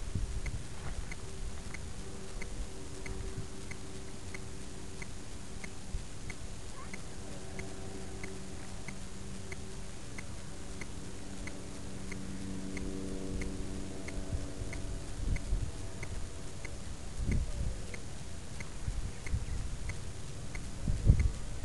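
Faint regular ticking, about two ticks a second, over a faint steady hum, with occasional low rumbles on the microphone, the loudest about three-quarters of the way through and near the end.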